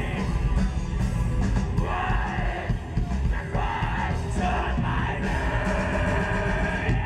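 Melodic black metal band playing live: guitars and dense, fast drumming with a harsh shouted vocal over them.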